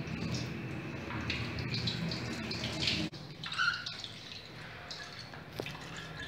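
Water running and dripping through a plastic colander of rinsed millet and moong dal into a steel bowl in a sink. About three seconds in it cuts off suddenly, leaving quieter sound with a few small knocks.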